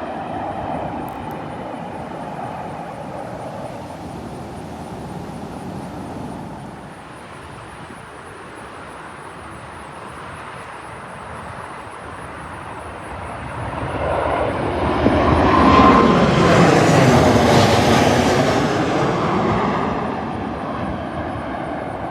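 Southwest Airlines Boeing 737 jetliner on landing approach, flying low overhead. Its jet noise builds from about two-thirds of the way in, peaks with a sweeping, phasing whoosh, then fades. In the first part the jet noise of the previous plane is dying away.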